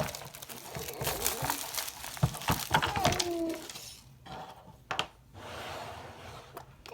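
Rustling and clicking handling noises of a toddler's toy being handled, with a short child's vocal sound about three seconds in; quieter after about four seconds.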